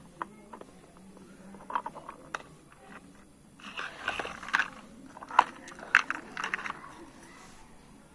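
Small plastic toy pots, lids and utensils clicking, knocking and scraping as they are handled and set down on a concrete floor. A few scattered clicks at first, then busier clattering from about four seconds in, with the sharpest knocks near five and a half and six seconds.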